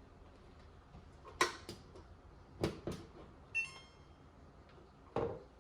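Plastic clicks and knocks from a refrigerator's dispenser display panel being pried off and handled, about half a dozen sharp ones spread apart, with a brief high-pitched squeak in the middle.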